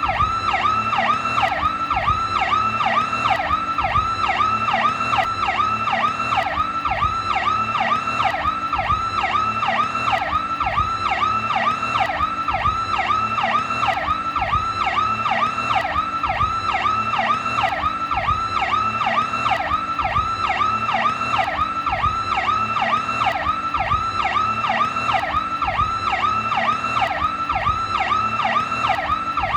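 New York police car's Federal Signal PowerCall electronic siren sounding continuously in a fast rising-and-falling wail, about two to three sweeps a second, steady and unchanging.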